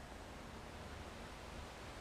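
Faint, steady background hiss with no distinct events: room tone.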